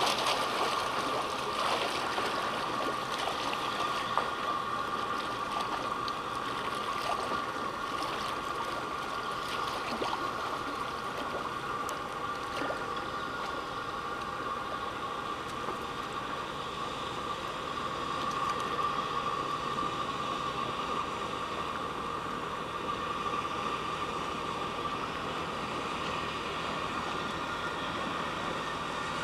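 Steady waterfront ambience: water lapping and gurgling against a rock shoreline, with a constant high-pitched hum.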